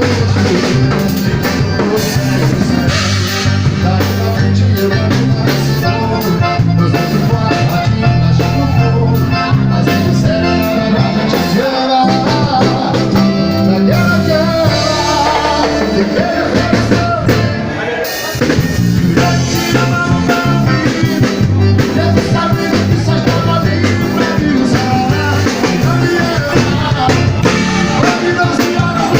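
Live band music played loud through a PA system, with drums, bass and a singing voice; the band drops out briefly about two-thirds of the way through, then comes back in.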